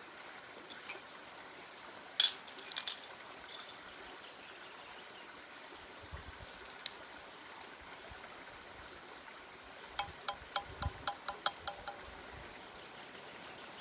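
Light ringing clinks over a steady soft hiss: a small cluster a couple of seconds in, then a quick run of about ten near the end.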